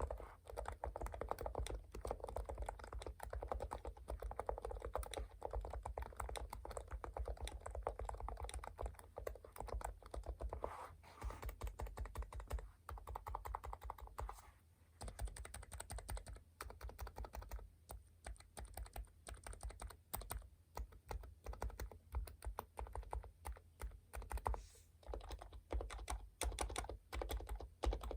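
Typing on a computer keyboard: a steady run of keystrokes, fewer and more spaced out around the middle.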